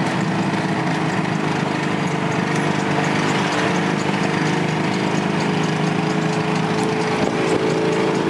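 Small vehicle engine running steadily, heard from on board while riding, with a constant drone and hum.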